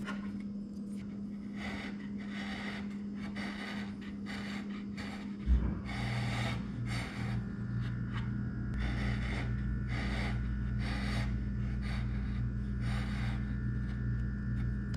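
A bench chisel pared by hand across the end of a wooden through-tenon to chamfer it: a series of short shaving scrapes, about one or two a second, over a steady low hum. A single thump about five and a half seconds in.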